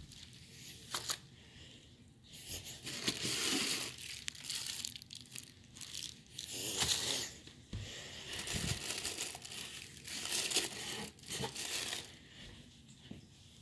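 Packing material crinkling and tearing in irregular bursts of rustling, with a few light knocks, as parts are unwrapped.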